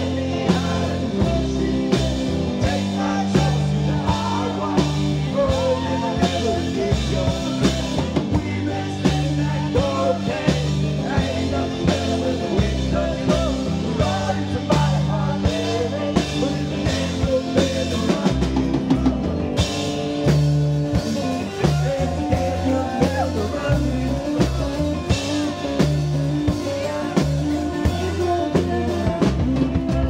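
Live rock band playing: a drum kit keeps a steady beat under bass notes and acoustic and electric guitars, with a wavering lead line on top.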